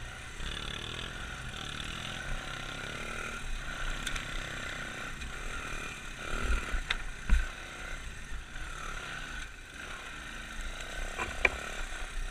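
Pit bike engine running as the bike rides over leaf-covered forest ground, with a couple of low thumps from bumps around seven seconds in.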